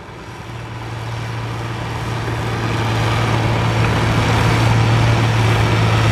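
Farm stock tractor's diesel engine under full load, pulling a weight-transfer sled, with a steady low drone. It gets louder over the first few seconds, then holds level.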